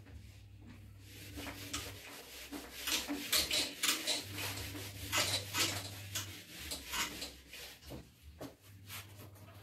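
Handheld eraser wiping a whiteboard clean in a rapid series of short scrubbing strokes, easing off near the end.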